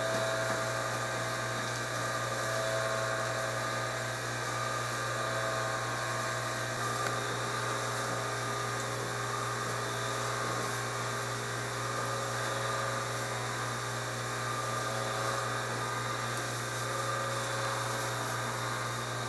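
A small electric motor running steadily, a hum with a thin high whine over it.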